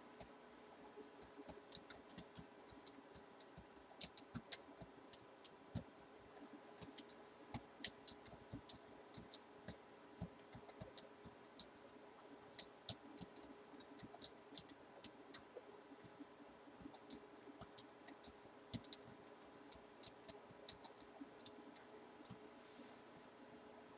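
Quiet room with scattered, irregular faint clicks and taps over a low steady hum, and a brief hiss shortly before the end.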